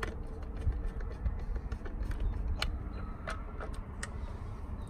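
Hand screwdriver tightening the screws of a gas meter module's plastic cover, giving a few faint scattered clicks over a steady low rumble.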